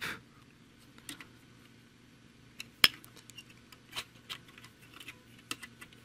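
Scattered light clicks and taps of a thin metal tool and plastic fan parts being handled against a graphics card's aluminium heatsink fins, with one sharp click nearly three seconds in.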